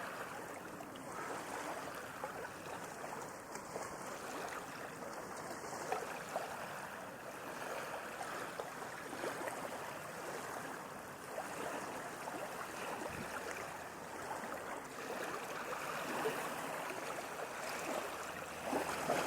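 Ocean waves washing steadily, an even wash of water with small splashes.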